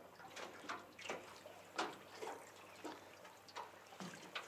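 Small waves lapping against the side of an aluminium boat in irregular little splashes.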